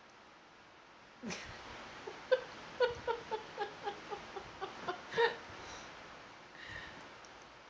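A young child's high-pitched giggling: a rising squeal about a second in, then a quick run of about a dozen short laughs, about four a second, falling slightly in pitch and ending on a louder one.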